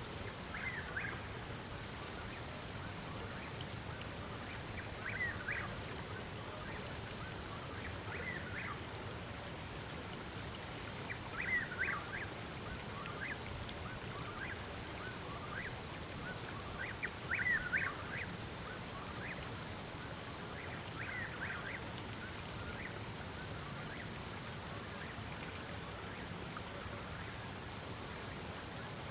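Animal calls: clusters of a few quick short notes every few seconds, two of them louder, over a steady background hiss and a high thin trill that breaks off and starts again.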